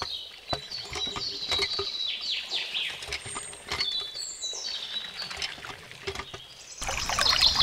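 Water running from a miniature hand pump's clear tube into a small plastic pond, with many short high squeaky chirps over a faint trickle. About seven seconds in the flow gets louder, a steady pouring splash.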